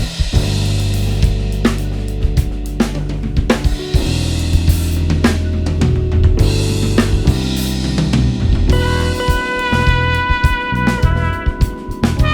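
Live band music led by a drum kit with Soultone cymbals: snare and bass drum hits, cymbals and rimshots over a sustained bass line. Held melodic notes join about three-quarters of the way through.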